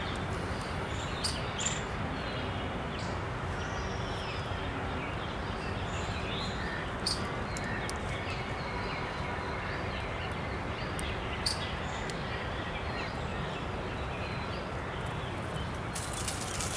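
Outdoor nature ambience: a steady background hiss with scattered faint bird chirps and a few short clicks.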